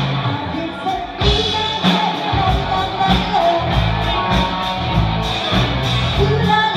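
A live rock band playing, with a drum kit keeping a steady cymbal-and-drum beat, keyboards, and a sung lead vocal line over it.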